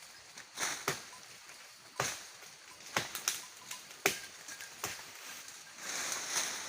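Twigs and leafy fodder being snapped and torn: about seven sharp, uneven snaps, with a short rustle of leaves near the end.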